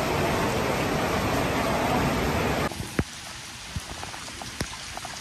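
A loud, even rushing noise of water that cuts off abruptly about two and a half seconds in. It gives way to quieter heavy rain falling on a flooded road, with single drops striking close by.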